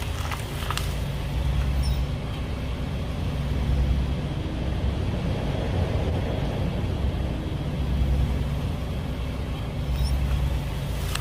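Car engine running at low revs, a steady low rumble that swells and eases every couple of seconds.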